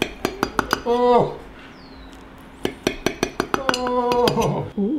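A kitchen knife tapping and clicking against a ceramic baking dish as it cuts down through a wheel of baked soft cheese: a quick run of sharp clicks at the start, and another run about three seconds in.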